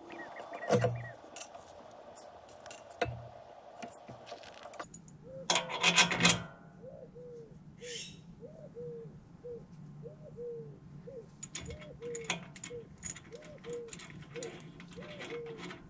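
A steering stabilizer and its mounting hardware being handled and fitted into the bracket by hand: scattered metal clinks, knocks and rubbing, with a louder run of knocks about six seconds in.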